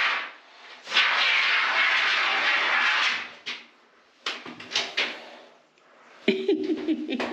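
Can of expanding foam hissing as it sprays for about two seconds, followed by a few short clicks and knocks, and a buzzing pitched sound near the end.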